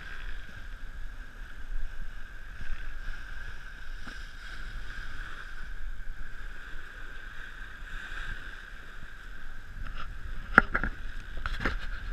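Wind and sea rushing past a sailing yacht under way, with wind on the microphone, and a few sharp knocks near the end.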